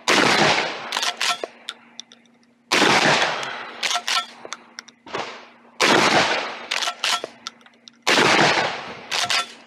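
Templeton Arms T1000 12-gauge shotgun fired four times, about two to three seconds apart, each shot echoing away over a second or more. Smaller sharp clicks fall between the shots.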